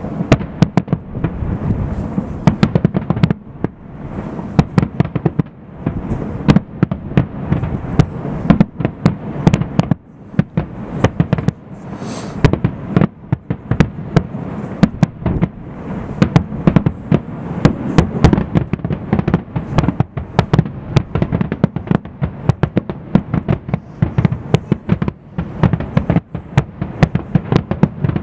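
Fireworks display: aerial shells and ground-fired effects going off in a dense, unbroken barrage of bangs, several a second, over a steady low rumble.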